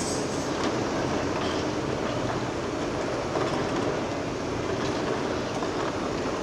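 Large hydraulic excavator working in hard rock: a steady diesel engine and hydraulic noise, with a few faint knocks of rock.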